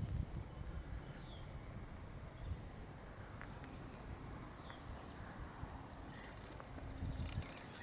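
An insect trilling in a high, rapidly pulsing buzz that cuts off suddenly about seven seconds in, over faint low background noise.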